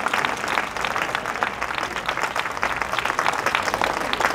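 Crowd applauding, many hands clapping steadily, greeting a home run.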